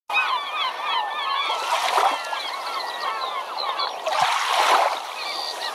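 A flock of birds calling, many short overlapping chirping calls at once, with surges of rushing noise about two seconds in and again around four to five seconds.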